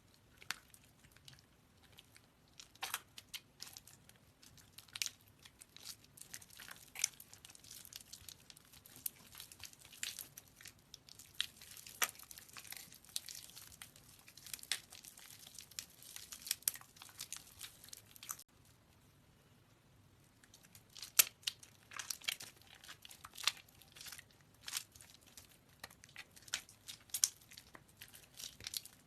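Soaked bar soap being squeezed by hand: a dense, irregular run of small crackling clicks that stops for about two seconds roughly two-thirds of the way through, then resumes.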